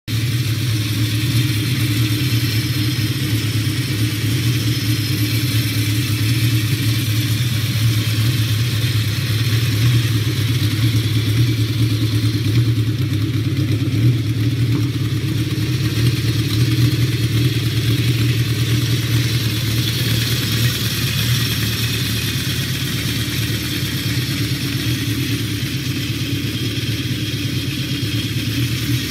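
Motorcycle engine running steadily, a low even drone that cuts in suddenly and holds with slight swells in loudness around the middle.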